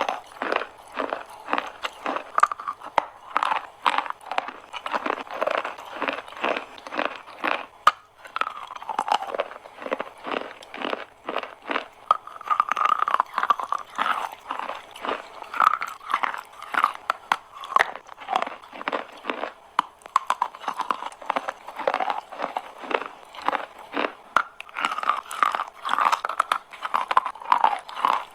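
Chalk being bitten and chewed close to the microphone: a dense run of crisp crunches, several a second, with a brief pause partway through.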